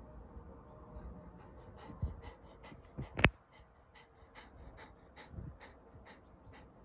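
Bernese mountain dog panting rapidly, about five breaths a second, starting a second or so in. A sharp click about three seconds in is the loudest sound, just after two softer thumps.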